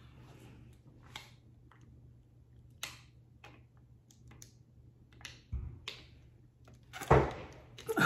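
Person drinking from a plastic water bottle: faint gulps and small sharp clicks from the plastic, with a louder burst of sound about seven seconds in.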